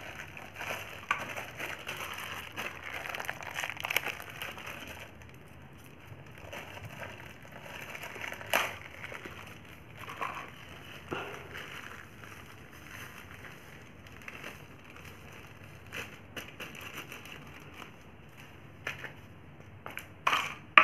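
Thin plastic bag of rangoli powder crinkling as it is handled and emptied into a plastic tub. The crinkling is busiest for the first few seconds, then turns to quieter rustles with a few light taps.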